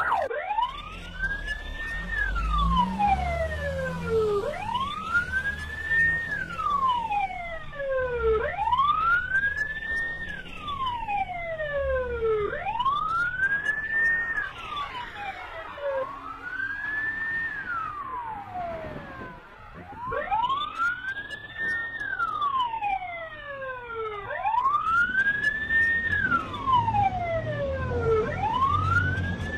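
Siren wailing: a slow rise and fall in pitch that repeats about every four seconds, with fainter overlapping wails behind it.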